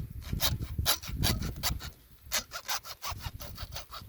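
Hand saw cutting through PVC pipe in quick back-and-forth strokes, about four a second, pausing briefly twice.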